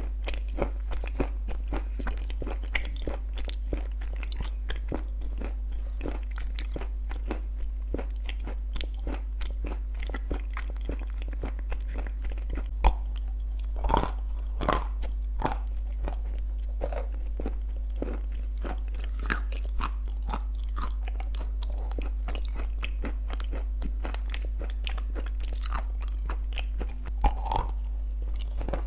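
Close-miked biting, crunching and chewing of crunchy baked clay 'shortbread cookies' with clay paste. Irregular crisp crunches run throughout over a steady low hum.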